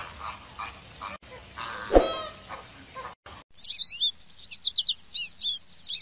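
Mixed bird calls with one loud call about two seconds in, then, after an abrupt switch a little past halfway, a sparrow chirping in quick, sharp, high notes several times a second.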